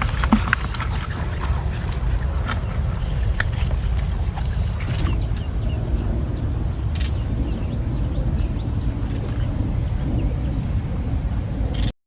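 Outdoor ambience: a steady low rumble with scattered clicks in the first few seconds, and a bird's repeated short high chirps, about three a second, for a few seconds; fainter high chirps follow, and the sound cuts off just before the end.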